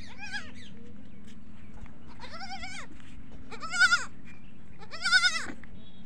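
Goat kid bleating: three loud, high-pitched, quavering bleats about a second and a half apart, with a fainter one at the start.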